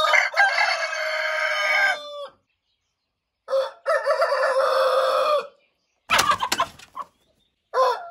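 Domestic roosters crowing: two full cock-a-doodle-doo crows of about two seconds each, ending on a long held note, with dead silence between them. A brief noisy burst comes about six seconds in, and a third crow starts at the very end.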